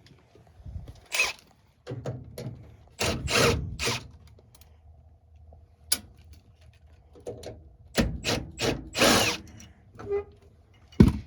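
Hand tools working a furnace gas pipe loose: irregular metallic clicks, knocks and short scraping or ratcheting bursts, with quiet gaps between.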